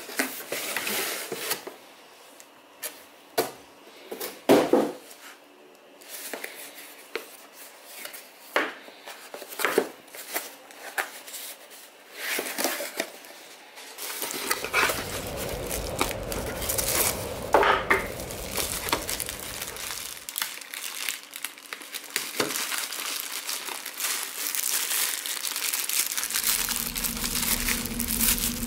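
Cardboard packaging being opened and handled by hand: crinkling and tearing with many short taps and scrapes of cardboard.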